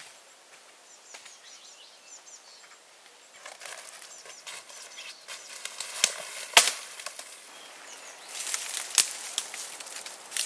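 A few faint small-bird chirps, then rustling through dry dead spruce branches with sharp cracks of twigs snapping as they are broken off by hand; the two loudest snaps come in the second half.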